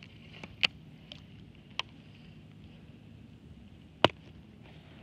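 A few sharp clicks and knocks at uneven intervals from a baitcasting reel and rod being handled, the loudest about four seconds in.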